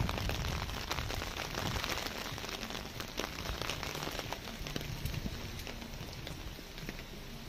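Light rain falling on a wet street, a steady patter with many small drops ticking close by.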